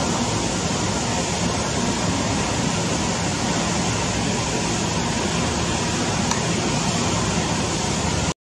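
Airbus A320's CFM56 jet engines running at low taxi thrust: a steady rushing hum with a faint whine, cutting out abruptly right at the end.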